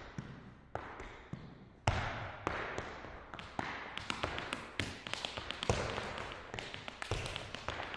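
Irish dancing hard shoes striking the floor: a few single heavy clicks about half a second apart, then from about halfway a quicker run of rapid taps, each with a short echo.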